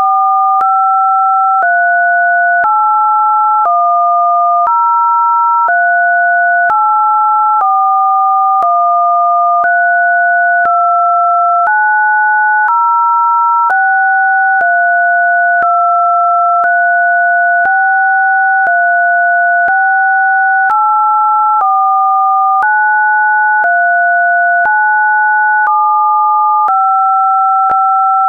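Two pure electronic tones sounding together, each jumping to a new pitch about once a second, with a faint click at every change. It is a synthetic test signal.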